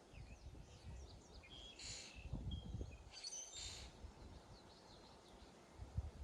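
Faint birds chirping, with short calls scattered throughout and two brighter bursts of chirps about two and three seconds in, over a low irregular rumble.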